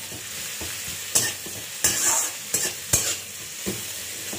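Chopped onions sizzling in hot oil in a metal kadai on high flame. A metal spatula stirs them, scraping and knocking against the pan about five times at uneven intervals.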